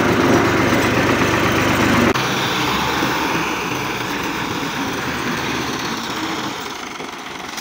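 Farm tractor's diesel engine running steadily as the tractor drives, heard close up at first. About two seconds in it turns thinner and farther off, then slowly quieter.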